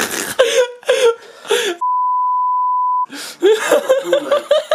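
Short vocal cries from someone reacting to a mouth burning with Reaper chilli sauce. Just under two seconds in, they are cut off by a steady one-tone censor bleep lasting about a second with all other sound muted. Then comes a quick run of short gasping cries, several a second.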